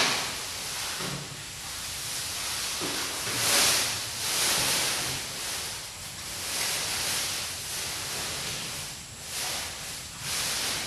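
Dry corn stalks and leaves rustling and crackling as they are handled, a hissing rustle that swells and fades every second or two.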